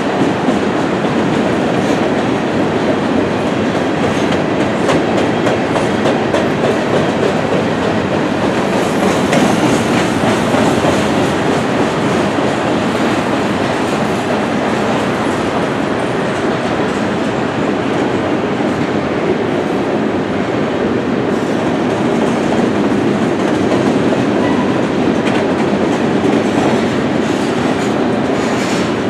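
Covered hopper cars of a Canadian Pacific grain train rolling past: a loud, steady rumble of steel wheels on the rails.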